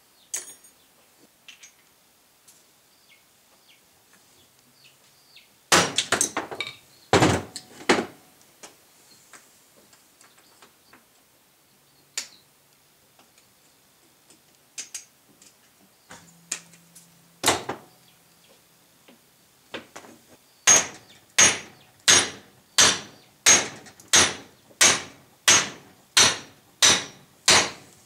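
Hammer blows on a truck driveshaft yoke, driving a U-joint bearing cup through it. First come a few separate strikes and a quick cluster of blows. Near the end a steady run of about a dozen blows follows, roughly three every two seconds.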